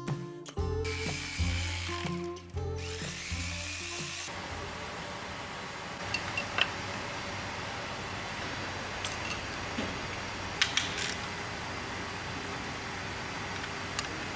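Background music for about the first four seconds, then steady background noise with a few scattered sharp clicks and clacks of hand tools and plastic engine parts being fitted on a diesel engine, two of them near the end.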